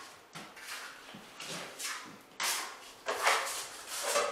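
Drywall taping knife scraping joint compound into the beveled seam of a drywall joint: a series of short scraping strokes, about two a second, the loudest about three seconds in.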